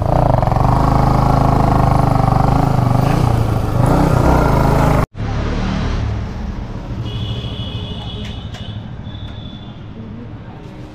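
Motorcycle engine running steadily while the bike is ridden. It cuts off abruptly about five seconds in, leaving much quieter background with a few faint clicks.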